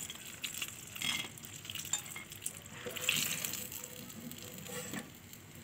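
Chicken pieces deep-frying in hot oil with a steady sizzle. A wire mesh strainer scrapes and knocks lightly against the pan a few times as the fried pieces are lifted out.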